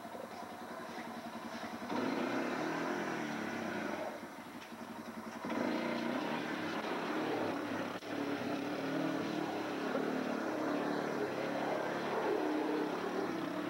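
Old red four-wheeler's (ATV) engine running as it is ridden in circles, its note rising and falling with the throttle. It is softer and pulsing at first, picks up about two seconds in, eases off around four seconds, then revs up again.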